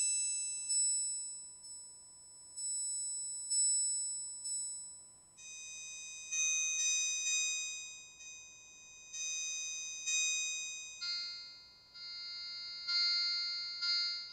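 Electronic synthesizer music: high, bell-like chords struck again and again, each one dying away. The chord changes twice, and the music cuts off suddenly at the end.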